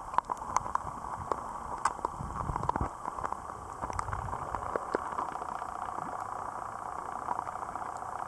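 Water sloshing and bubbling around a camera held half-submerged at the surface: a muffled hiss with scattered clicks and pops, busiest in the first few seconds.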